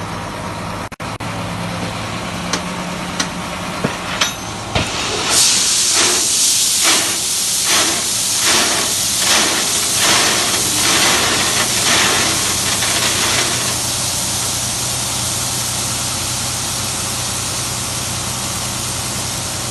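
Heavy earth-moving machine's diesel engine running with a steady low hum and a few sharp clicks. About five seconds in, a loud hissing starts that pulses roughly once a second for about eight seconds, then settles to a steady hiss.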